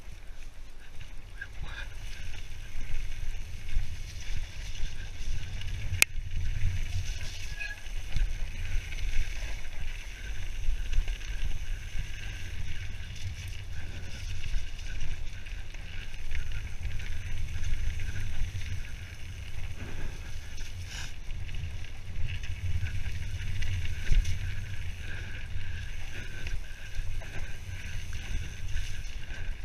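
Mountain bike riding fast down a dirt forest trail: steady wind rumble on the camera microphone with tyre noise and the bike rattling over the ground, and one sharp click about six seconds in.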